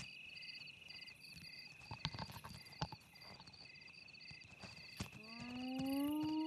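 Night insects chirping steadily, with a few faint clicks. About five seconds in, a spotted hyena starts a whoop: one long call that rises slowly in pitch.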